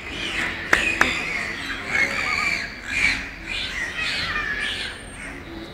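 Dolphins calling in air: a run of squawks and whistles that rise and fall in pitch, one after another. Two sharp knocks come about a second in.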